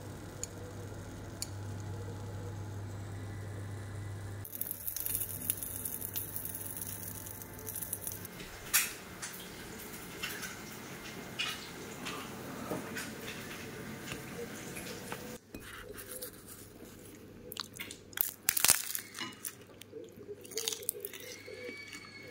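Kitchen handling sounds during cooking: scattered clicks, knocks and clinks of utensils and dishes over a steady low hum that stops about two-thirds of the way through.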